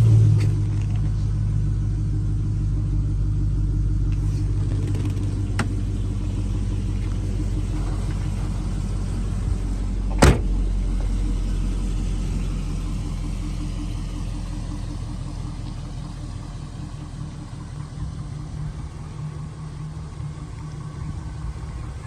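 LS1 V8 engine of a restomod Firebird idling steadily through shorty headers, a low even rumble that slowly grows quieter. A single sharp click about ten seconds in.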